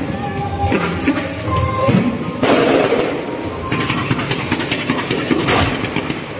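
Festive music with fireworks going off: single sharp bangs, and a dense burst of crackling about two and a half seconds in that lasts about a second.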